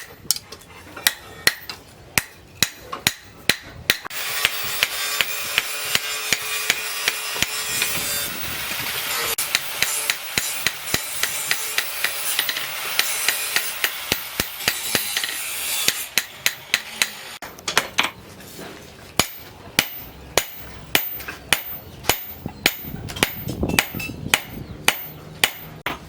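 Hammer striking steel on an anvil, forging a knife blade from old rebar: sharp ringing blows about two a second. Between about four and sixteen seconds in the blows come faster, over a steady hiss.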